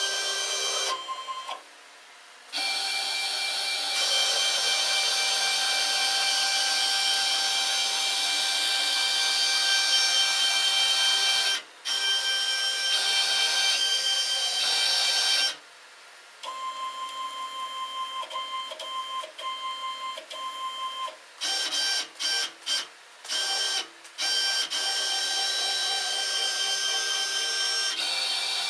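Stepper motors of a 3040 desktop CNC router driving its axes in an air run with no cutter: a steady whine of several tones that changes pitch with each move. It stops briefly a few times and stutters on and off in quick short moves a little after the middle, with no rattling.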